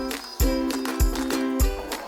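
Background music with a steady beat: a deep bass drum hits about every 0.6 seconds under held synth chords.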